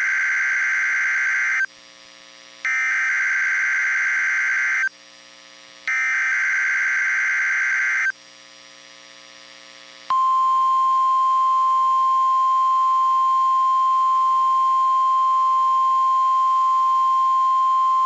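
NOAA Weather Radio emergency alert (SAME) header for a required weekly test: three bursts of digital data tones, each about two seconds long with a second's gap between them. About ten seconds in, the steady 1050 Hz warning alarm tone starts and holds.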